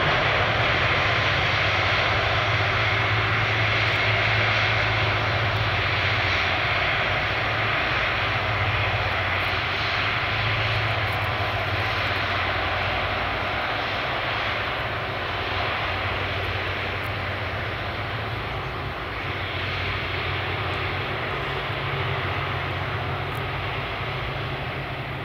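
Airbus A330 jet engines running as the airliner rolls out along the runway after landing, a steady noise that slowly fades as it slows and moves away.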